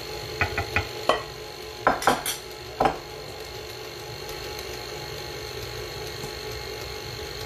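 Glass dishes clinking and knocking on the countertop, a few light clicks in the first second and three or four louder knocks between about two and three seconds in, over the steady hum of a stand mixer running on low as it mixes cake batter.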